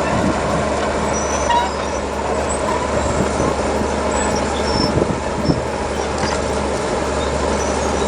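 Heavy earthmoving machine's diesel engine running steadily, with a few short knocks and cracks a few seconds in.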